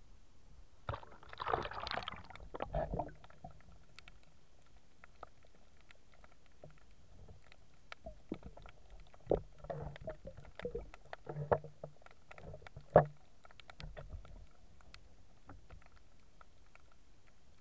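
Sea water splashing and sloshing around a camera dipped under the surface: a splashy burst about a second in, then muffled underwater sloshing with scattered clicks and knocks in the second half, the sharpest near the end.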